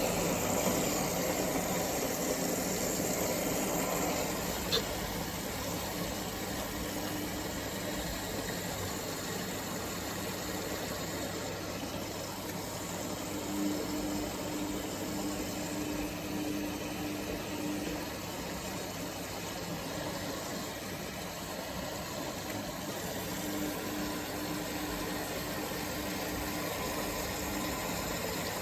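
Samsung WF1700WRW washing machine running its daily programme: a steady mechanical hum, with the motor's humming tone coming in for a few seconds and dropping out twice in the second half.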